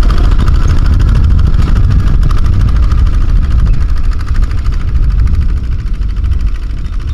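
Several two-wheel walking tractors with single-cylinder Kubota diesel engines running steadily under load as they pull loaded trailers, with a rapid, even firing beat over a deep rumble.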